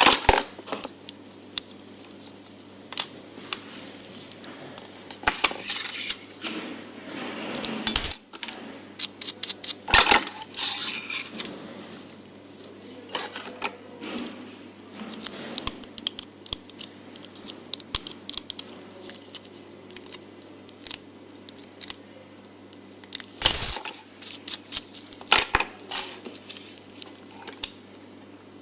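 Small metal tools and parts handled on a workbench: scattered light clicks and clinks, with two sharper metallic clinks that ring briefly, about 8 seconds in and again about 23 seconds in.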